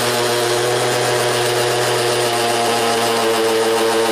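Electric drill running steadily, drilling a hole to mount a residential smoke alarm.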